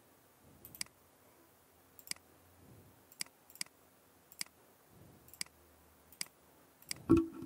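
Computer mouse clicking: about eight sharp single clicks, spaced irregularly about a second apart, then a louder low thump near the end.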